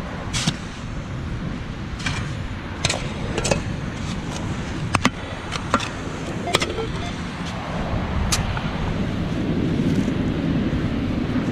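Shovel digging in beach sand: a series of sharp, scattered clicks and scrapes over a steady low wind rumble on the microphone.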